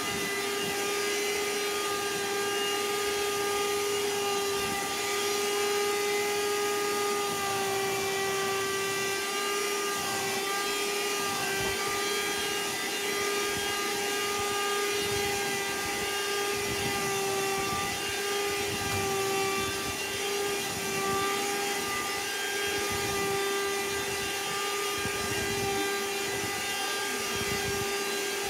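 Vacuum cleaner running steadily, its motor giving a constant whine over a rushing hiss.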